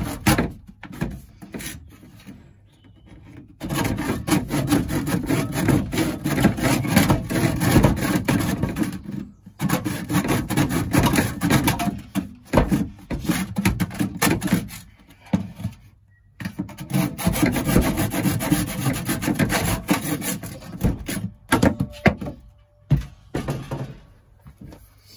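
Rapid rasping strokes of a hand tool working a freshly cut pipe, in four bouts of a few seconds each with short pauses between.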